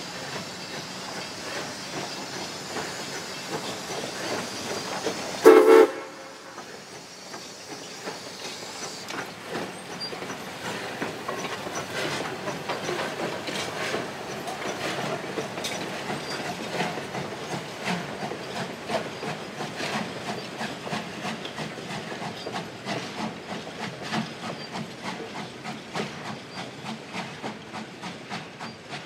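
Steam locomotive hauling a passenger train past: a steady hiss for the first several seconds, one short whistle blast about five and a half seconds in, then regular clicking of wheels over rail joints as the cars roll by.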